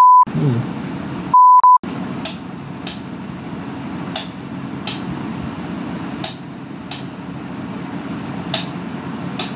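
Censor bleep: a pure beep tone cut in twice, the second a little longer about a second and a half in, over an expletive. After it, a steady low hum with pairs of short, soft hissing ticks repeating every second or two.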